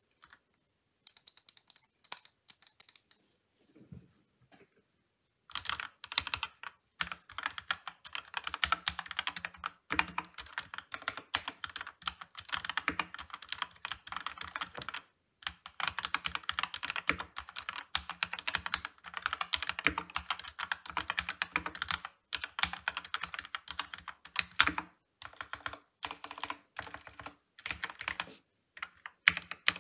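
Typing on an Akko 3087DS Horizon mechanical keyboard with Akko CS Rose Red linear switches and PBT keycaps, tape and foam modded. A few scattered keystrokes come first, then steady fast typing from about five seconds in, broken by a few short pauses.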